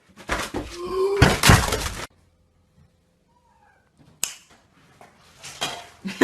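A loud clatter with a heavy thump about a second and a half in, cutting off abruptly after about two seconds; a sharp click follows about four seconds in.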